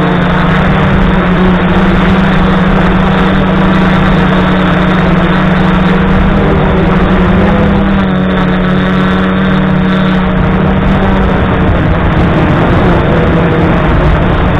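Brushless motors and propellers of an F450 quadcopter heard from its onboard camera: a loud, steady buzz with a strong hum. Its pitch shifts slightly about eight seconds in as the motors adjust.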